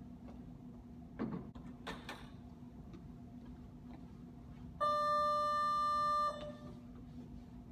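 A loud electronic beep held steady for about a second and a half, after a knock and a short clatter, over a steady low machine hum.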